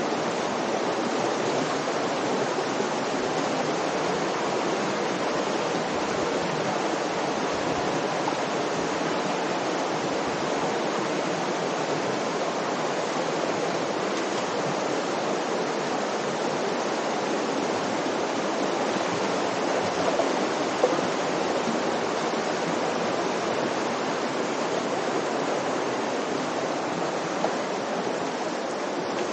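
Steady rushing of the Virgin River's shallow water flowing over rocks.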